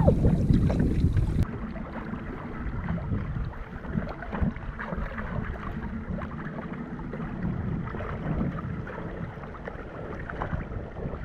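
Wind buffeting the microphone over water sloshing at a boat's side. About a second and a half in it cuts to duller, softer water sounds: irregular splashing and lapping at the surface, with small scattered splashes.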